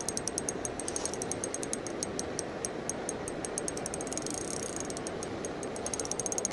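Spinning reel's drag clicking rapidly and unevenly as a hooked fish pulls line off against it; the angler takes the fish for a pike.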